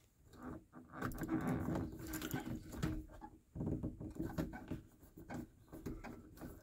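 Rustling, scraping and light irregular knocks of hands pressing a small plastic DC-DC voltage regulator into place with interlocking fastener tape against the plastic fan housing and carpeted ceiling.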